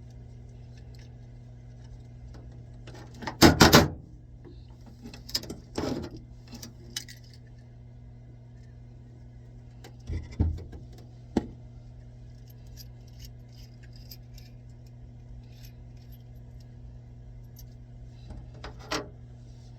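Metal tools or fittings clattering and clinking as they are handled, loudest about three and a half seconds in, with a few more clinks later, over a steady low hum.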